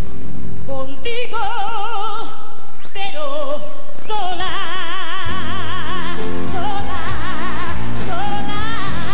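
A woman singing a Latin pop ballad into a microphone, impersonating a Latin pop singer, with a wide, heavy vibrato on the held notes. The accompaniment is thin at first; about five seconds in a live band comes in underneath with bass and cymbals.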